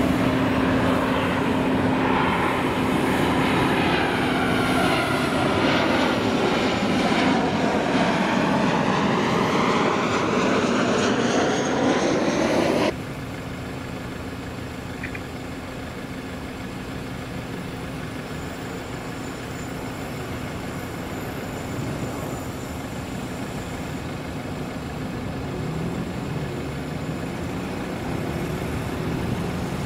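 Boeing 737-800 jetliner passing low overhead, its engine noise loud and steady with whooshing, sweeping tones that close in around the moment it passes nearest, cut off suddenly about 13 seconds in. After that comes the fainter, steady jet noise of an Airbus A320 on approach with its gear down, slowly growing louder.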